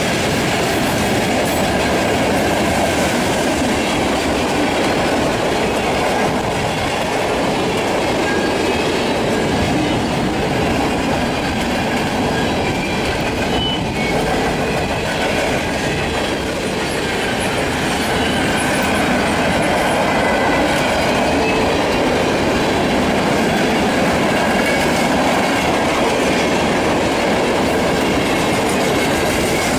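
Freight train cars rolling past on the main line, a steady rumble and clatter of wheels over the rails, with faint thin wheel squeal in the second half.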